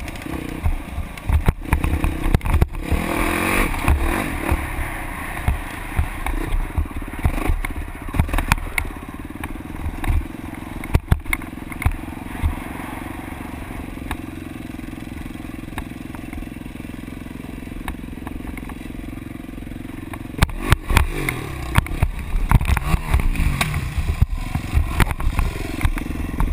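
Dirt bike engine running as it is ridden over bare rock, heard from an onboard camera, with many knocks and thumps from the rough ride. The revs rise and fall a few seconds in, hold fairly steady through the middle, then rise and fall again with clatter near the end as the bike goes down into a pool of water.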